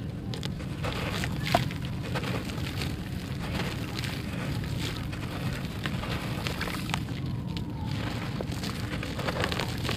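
A gritty sand-and-gravel chunk crumbled between hands, with crumbs and small stones falling into a wet tub, giving a steady grainy crunch with many small irregular crackles. A steady low rumble runs underneath.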